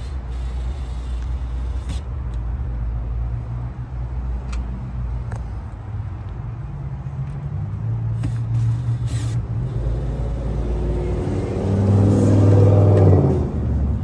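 DeWalt cordless drill-driver driving screws into an RV door's striker plate, running in spurts with the loudest, longest run near the end, over a steady low rumble.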